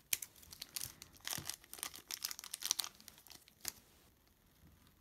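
Thin clear plastic parts bag crinkling and crackling as it is cut open with scissors and handled, a run of small sharp crackles and clicks. It dies away about four seconds in.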